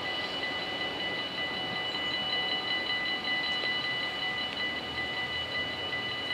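Warning bells of a Dutch automatic half-barrier level crossing ringing in a fast, even, repeating pattern, which means the crossing is still closed.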